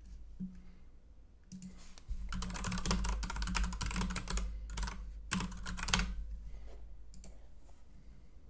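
Rapid typing on a computer keyboard, a quick run of key clicks for several seconds, then a few last taps.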